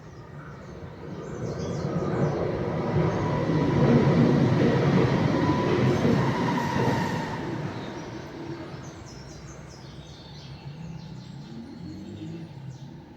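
A vehicle passing by: a dense rumbling noise that builds for a few seconds, peaks, and fades away, with a faint high tone through its loudest part. Birds chirp faintly before and after it.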